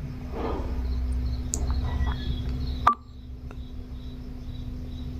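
A single sharp metallic clink about three seconds in, with a short ring, as metal parts are handled. Under it runs a steady low hum, which drops after the clink, and faint high insect-like chirping.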